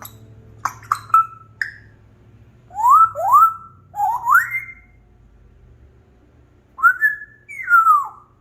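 African grey parrot whistling: a few short clicks first, then two pairs of quick rising whistles, and near the end a whistle that rises and one that slides down.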